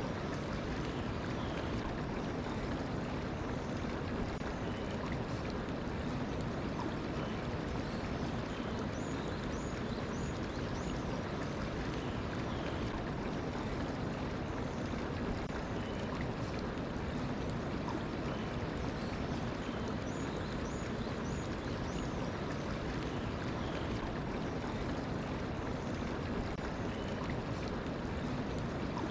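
Stream water flowing steadily, with faint short bird chirps now and then above the rush of water.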